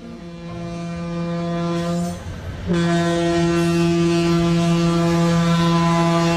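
Diesel locomotive air horn, Chicago, Burlington & Quincy No. 504, an EMD SD24, sounding as the train passes: a blast of about two seconds, a brief break, then a long steady blast.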